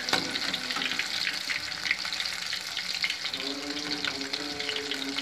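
Grape pakoras in gram-flour batter deep-frying in hot oil: a steady sizzle thick with small crackles and pops.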